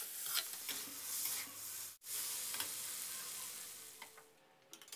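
Flaked fried mackerel, chillies and holy basil sizzling in a hot wok as a metal spatula stirs and scrapes them, wilting the basil at the end of the stir-fry. The sizzle breaks off briefly about two seconds in and fades out after about four seconds, leaving a few light clicks near the end.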